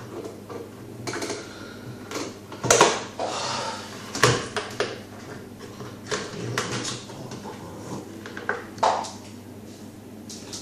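Acrylic parts of a Deltec MCE300 protein skimmer being handled and worked into place: irregular plastic clicks and knocks, with a few sharper knocks about three, four and nine seconds in, as a tight-fitting part is wrestled with.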